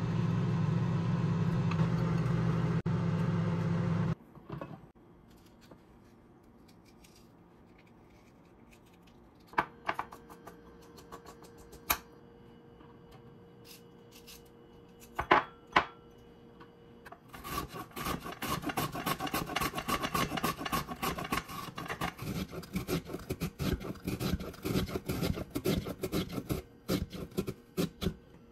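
A loud steady mechanical hum that cuts off about four seconds in, then a few scattered clicks. From about two-thirds of the way through, carrots are shredded on a box grater in quick repeated rasping strokes.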